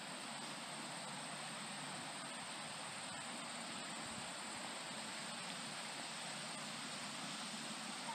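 Steady outdoor ambience: an even, unbroken hiss of insects trilling in the grass and trees.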